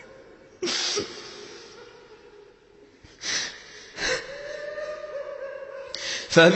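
A reciter's sharp, breathy inhalations close to the microphone, four in all, with a faint held tone of the recitation's echo between them. The chanted recitation voice comes back in right at the end.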